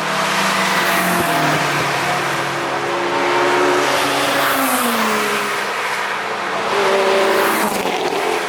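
Several cars driven hard past on a race track, their engines' pitches overlapping, with one falling in pitch midway as a car goes past.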